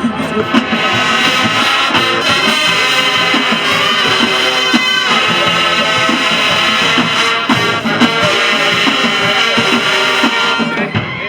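Loud music playing, dense and continuous.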